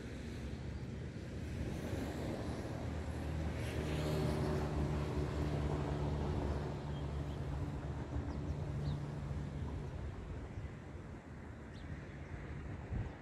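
An engine passing: a low, steady drone swells in about three seconds in, holds for several seconds, then fades away.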